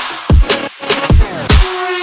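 Electronic dance background music with a heavy beat: four deep, falling bass-drum hits in two seconds.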